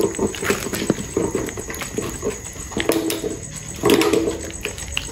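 A litter of puppies eating rice from a steel pan, with repeated sharp knocks and scrapes of the pan and paws, and short puppy noises as they jostle for the food, densest about four seconds in.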